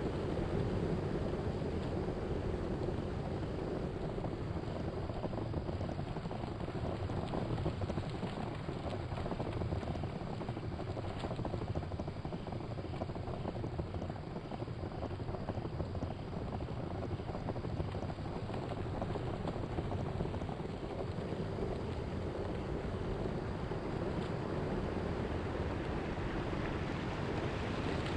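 Steady wind noise buffeting the microphone, with a low rumble underneath.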